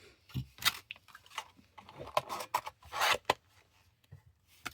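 Packaging being handled and opened by hand: a string of short plastic and cardboard scrapes, rustles and clicks, busiest in the middle.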